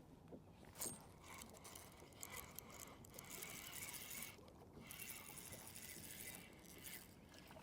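Fishing reel being cranked, a faint run of fine mechanical clicking from the reel's gears, in two stretches a few seconds long.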